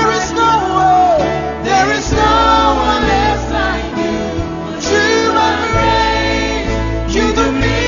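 A choir and worship band performing a worship song live: many voices singing together over acoustic guitar and a steady bass.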